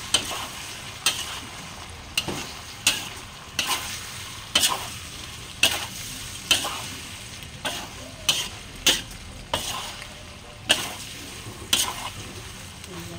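Stir-frying in a stainless steel wok: a metal spatula scrapes and tosses a mushroom mixture about once a second, over a steady sizzle.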